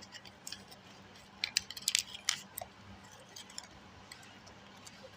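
Light clicks and taps of small objects being handled and fitted into place, clustered about one and a half to two and a half seconds in, with a few fainter ticks after.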